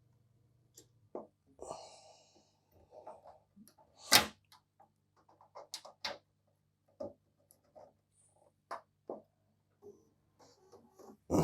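Irregular clicks and knocks of computer keyboard keys being pressed and things being handled on a desk, the loudest a single knock about four seconds in, over a faint steady low hum.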